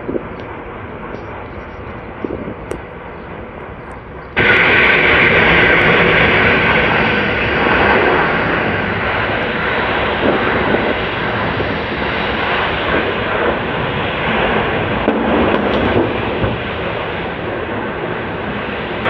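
Continuous rushing noise of a large burning fuel fire at a petrol station, much louder from about four seconds in and staying loud without a single sharp blast.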